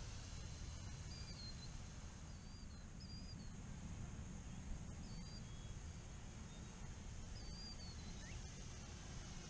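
Wind rumbling on the microphone, with short bird chirps every second or two and a faint, steady high whine from the distant twin electric motors of a foam RC P-38 model airplane.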